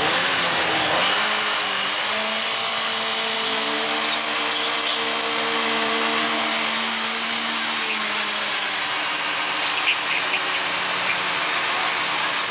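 Sport motorcycle doing a stationary burnout: the engine is revved hard in the first couple of seconds, then held at steady high revs while the rear tyre spins on the pavement, easing off slightly about eight seconds in.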